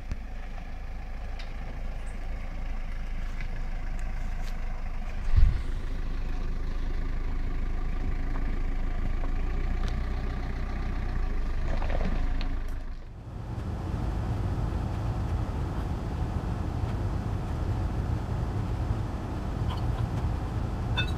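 Hyundai Galloper 4x4 driving on a rough forest track, its engine running steadily, with one loud thump about five seconds in. The sound breaks off briefly about two-thirds of the way through, then the engine is heard again.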